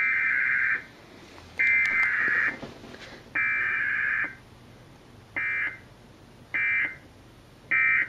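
Emergency Alert System SAME digital header played through a television: three buzzing data bursts of about a second each, a second apart, carrying a Required Weekly Test. These are followed by three shorter bursts, the end-of-message code.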